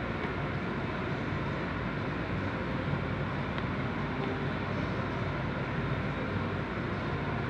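Steady rumbling background noise of a large indoor hall, even throughout, with a faint tick or two.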